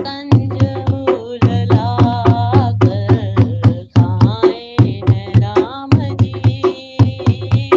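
Hindi devotional song (bhajan): a voice singing a melody over a steady beat of hand drums.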